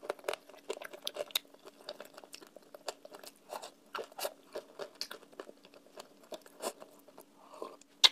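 Close-up chewing of clay paste: an irregular run of small crunchy clicks from the mouth, with one sharper, louder click near the end.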